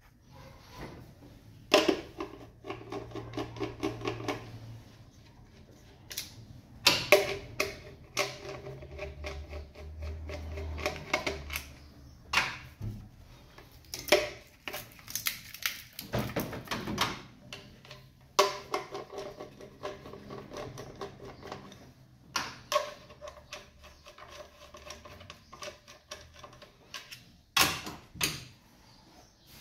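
Ratchet wrench clicking in quick runs of fast ticks as fasteners on the engine are worked, broken up by several sharp metallic clanks of tools.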